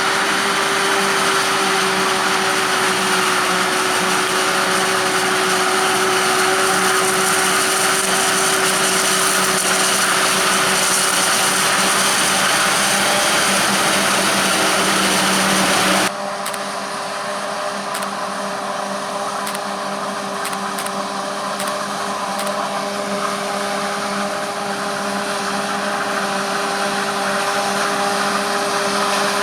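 Self-propelled forage harvester running with a steady, loud mechanical whine over a wide rushing noise. About halfway through, the sound changes suddenly to a somewhat quieter take of the same steady machine noise.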